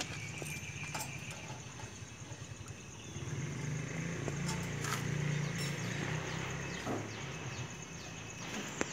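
A low, steady engine hum that swells louder through the middle and then eases off, with a few small metal clicks of pliers twisting tie wire onto steel rebar.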